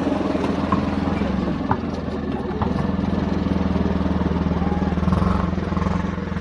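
Car engine running at low speed as the car rolls slowly past close by: a steady low hum. A few light knocks sound over it.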